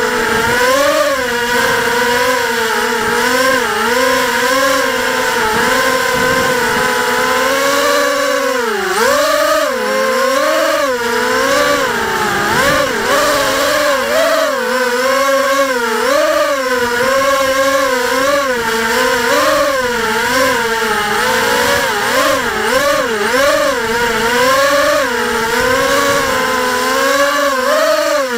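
Small FPV quadcopter's electric motors and propellers buzzing, heard close through the onboard camera; the pitch keeps rising and falling with the throttle, with a sharp drop about nine seconds in.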